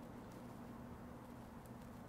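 Quiet room tone: a steady low hum with faint hiss, and a few very faint soft ticks.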